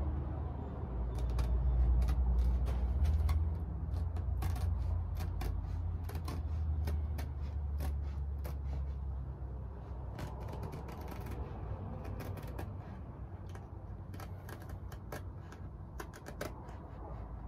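Scissors snipping through tent canvas in a quick, irregular series of sharp snips, with a low rumble underneath for about the first half.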